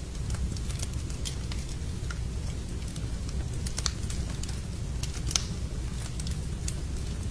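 Wood fire crackling in a fireplace: irregular sharp pops and snaps over a steady low rumble, the loudest snap a little past the middle.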